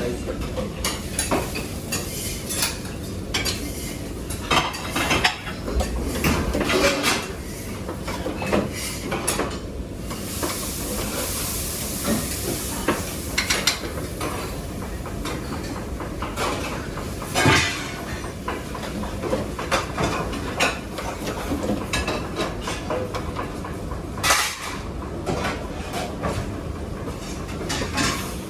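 Kitchen clatter of pots, pans and metal utensils knocking and clinking, with a stretch of hissing, like food sizzling, from about ten to thirteen seconds in.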